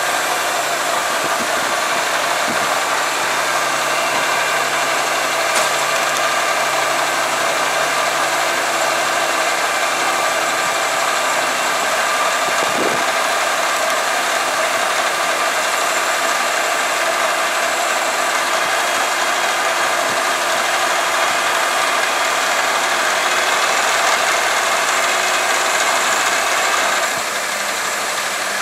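Diesel engine of a 1980 Freightliner dump truck running steadily while the hydraulic hoist raises the dump bed. It gets a little quieter near the end.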